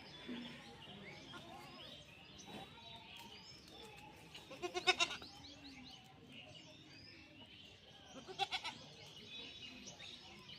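Goat bleating twice, each a short quavering call; the first comes about halfway through and the second about three and a half seconds later.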